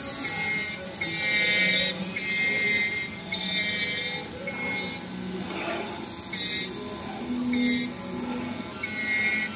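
CNC automatic fabric cutting machine running: its cutting-head and gantry drive motors whine. The whine comes in short stretches of steady pitch, about half a second to a second each, breaking as the head changes direction between cuts.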